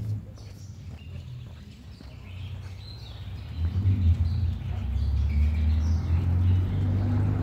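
Birds chirping in short scattered calls over outdoor street ambience, with a low rumble that swells about three and a half seconds in and stays loud.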